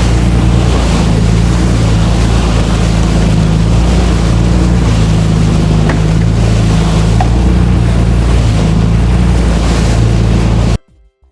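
Charter fishing boat running under way: a steady low engine drone with loud wind on the microphone and rushing water. It cuts off abruptly near the end.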